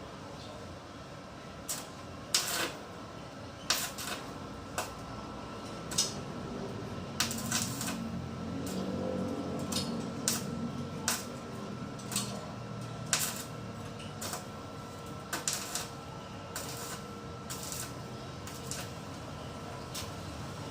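Irregular sharp clicks and knocks, roughly one a second with some close pairs, over a faint steady high tone.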